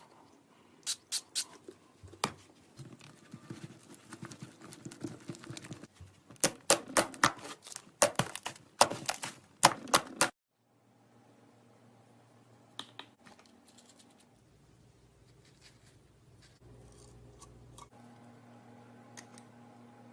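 Slime being squeezed and poked by hand close to the microphone, giving a run of sharp clicking pops for about ten seconds. It then cuts to much quieter handling: a faint steady hum with a few soft clicks.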